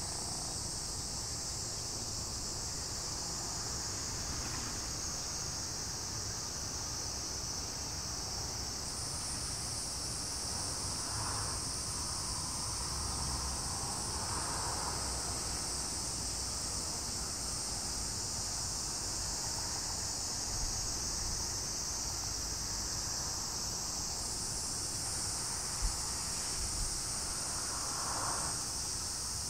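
A steady high-pitched chorus of insects, which thickens slightly twice, over a low rumble.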